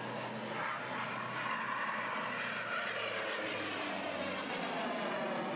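An airplane flying past, its engine noise a steady rush with tones that slide downward in the second half of the pass.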